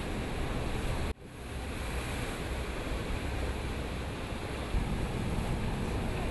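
Steady rushing noise of wind and sea on open water, with wind buffeting the microphone. About a second in, the sound cuts out abruptly and fades back in.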